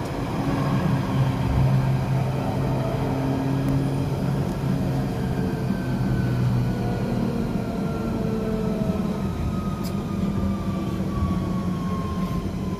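London Underground 1992 Stock Central Line train running on open track, heard from inside the carriage: a steady rumble with a motor whine that falls slowly in pitch as the train slows.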